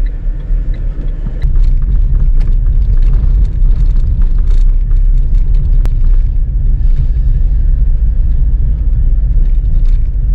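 Road noise inside a car driving on an unpaved dirt road: a steady low rumble from the tyres and body, with scattered small knocks and clicks over the rough surface. It grows louder about a second and a half in.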